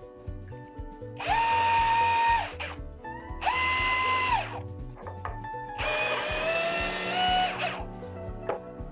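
Cordless brushless drill boring holes through a plywood board: the motor runs three times, each time spinning up to a steady whine and winding down, the third run the longest. Background music plays underneath.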